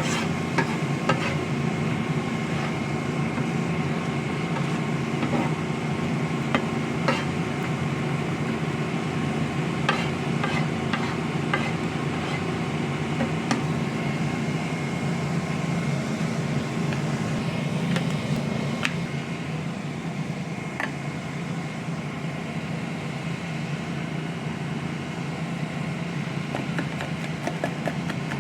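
Food frying in a pan with a utensil stirring and tapping now and then, over a steady hum.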